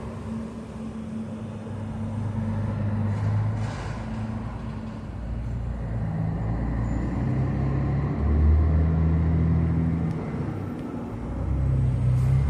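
A motor vehicle's engine running, its low hum stepping up and down in pitch and growing louder toward the end.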